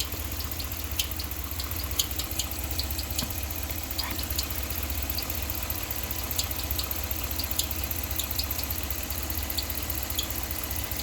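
A Ram's 5.7 Hemi V8 idling steadily with its accessory belt removed, with faint, irregular high-pitched ticks over the running. The noise is inside the engine, which the mechanic suspects is in the valvetrain.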